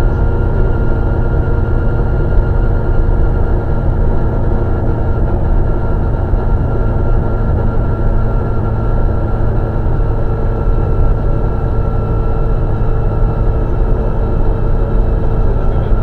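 Škoda 130 LR rally car's rear-mounted four-cylinder engine running at a steady, unchanging speed, heard from inside the cabin.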